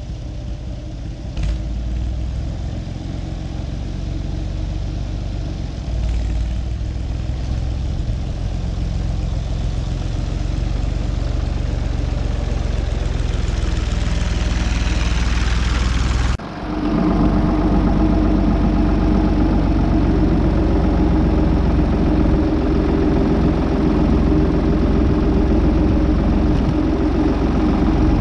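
Diesel tractor engine running steadily. About 16 seconds in the sound changes abruptly, and after that the engine runs louder with a steady hum.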